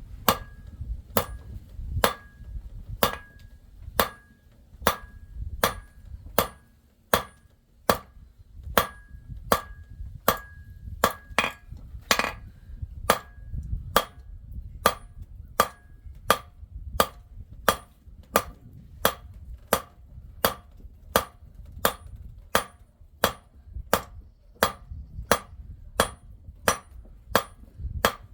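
A hammer striking silver on an anvil in a steady rhythm, about two blows a second. Many of the blows in the first half carry a short metallic ring.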